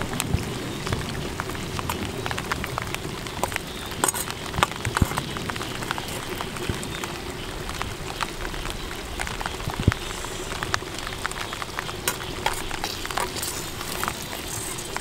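Steady crackling hiss of a clay pot of chicken and jackfruit boiling over a fire, with scattered sharper clicks and knocks.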